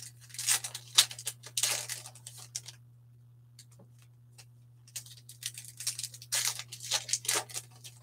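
Foil wrapper of a baseball card pack being torn open and crinkled by hand, in two spells of crackling with a pause of about two seconds between them.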